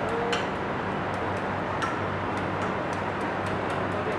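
Light, scattered ticks and clicks, a few each second, over a steady background hiss and low hum.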